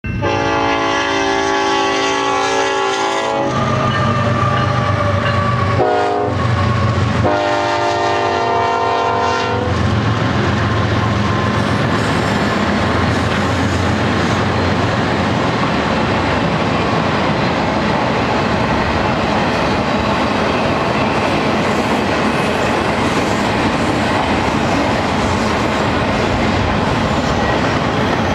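A BNSF locomotive horn sounds a long blast, a short one and another long blast, the closing part of a grade-crossing signal. Then the GE ES44C4 locomotives and double-stack intermodal cars roll past with a steady diesel rumble and wheel clatter on the rails.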